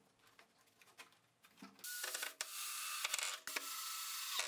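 Cordless drill running, boring a pilot hole into wood. It starts about two seconds in, after near silence, and stops briefly once or twice.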